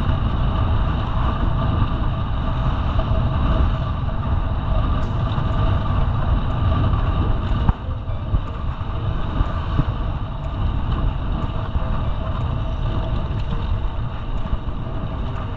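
Wind buffeting the microphone and road noise of a road bicycle riding on a paved road, a loud steady rush with a heavy low rumble. Faint, evenly spaced ticks come through in the second half.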